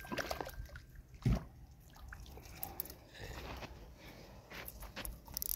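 Faint small water sounds at a lake's edge, with scattered light clicks and one dull low thump about a second in, over a steady low rumble.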